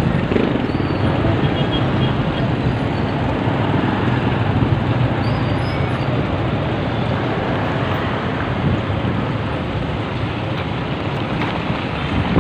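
Steady street traffic noise heard while riding a bicycle along a busy road, with wind rushing over the microphone.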